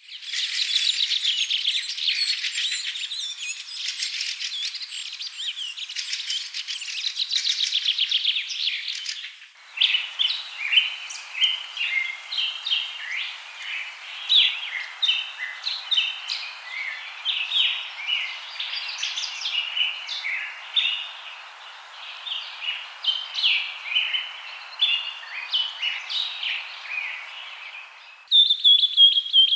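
Songbirds chirping and singing. A dense chorus of many birds twitters together, then after a cut about nine seconds in come separate quick chirps over a faint hiss. Near the end another recording begins with a clear whistled note.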